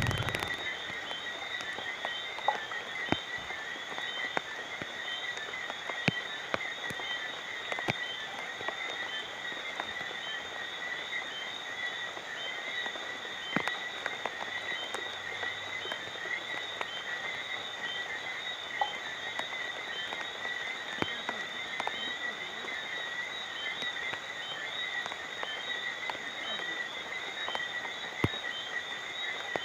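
Night rain with scattered drops ticking and dripping over a steady, rapidly pulsing chorus of calling frogs.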